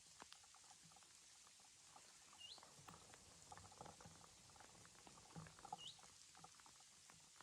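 Near silence with faint scattered crackles and ticks, and two short rising squeaks, one about two and a half seconds in and one near six seconds.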